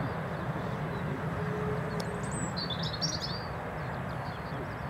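Steady low rumble of an Airbus A380's jet engines at taxi power, with a bird chirping a few quick high notes about two to three seconds in.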